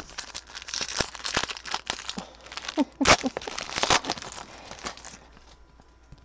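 A foil football-card pack wrapper being torn open and crinkled by hand. The crackling rustle is loudest about three seconds in and dies away about five seconds in.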